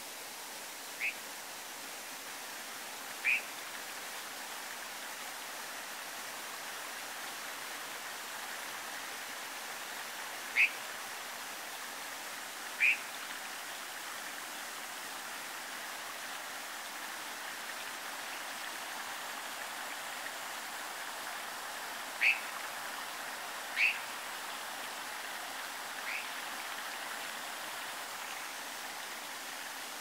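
A mountain stream rushing steadily, with short, sharp bird calls standing out above it seven times, in ones and twos spread through the stretch.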